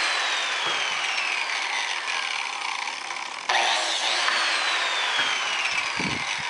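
DeWalt biscuit joiner running as its blade plunge-cuts biscuit slots into the angled ends of wooden arch segments, with a high motor whine that slowly falls in pitch. The motor starts up again about three and a half seconds in for the next slot, and there are a few low knocks near the end.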